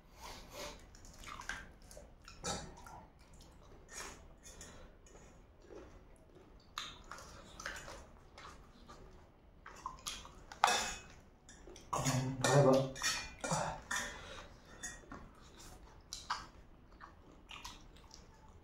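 Close-up eating sounds of spicy noodles and fried chicken feet: chewing and slurping, with forks clicking and scraping on metal plates in scattered short ticks and a busier stretch about two thirds of the way through.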